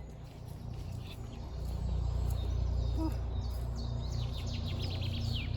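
Wild birds chirping in quick, falling notes, thickening about halfway through, over a steady, pulsing low drone.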